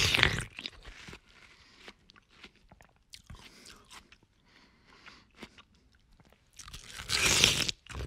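A person biting into watermelon and chewing: a loud crunching bite at the start and a second one about seven seconds in, with faint crunches of chewing in between.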